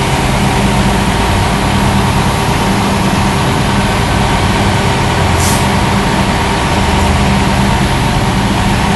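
Fire engine's diesel engine running steadily close by, a loud continuous drone. A short hiss cuts in briefly about five and a half seconds in.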